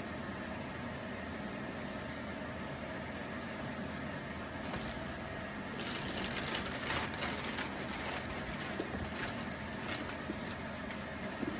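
Steady background hum, joined about six seconds in by irregular crackly rustling and handling noises.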